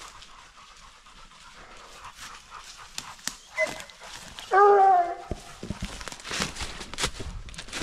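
Overheated coonhounds panting hard at the tree. One dog gives a single short bark about halfway through, and footsteps rustle through leaves and brush.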